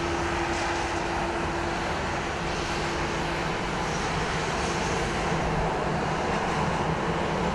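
Jet airliner engine noise at an airport: a steady rush with a low hum that drops away about halfway through.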